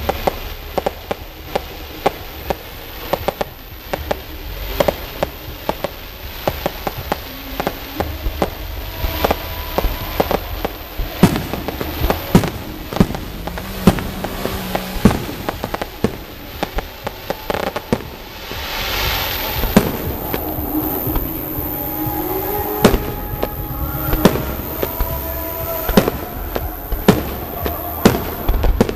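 Aerial fireworks display: shells bursting in a fast, irregular run of sharp bangs, with a hissing rush about two-thirds of the way through.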